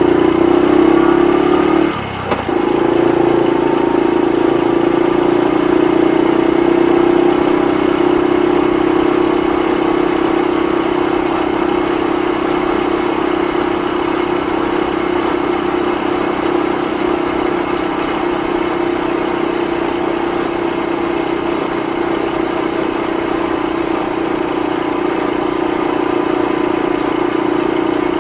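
Honda Super Cub 50's air-cooled 49 cc four-stroke single-cylinder engine and exhaust under way. It pulls up in pitch, drops off briefly about two seconds in at a gear change, pulls up again, then settles into a steady cruise.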